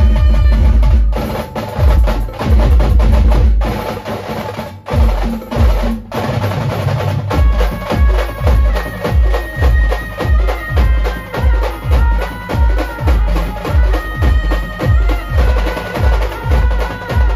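A live street band plays through a truck-mounted loudspeaker stack. For the first several seconds there are heavy bass-drum hits and drum rolls. After that a steady beat of about one and a half beats a second sets in, and a melody line joins it about eight seconds in.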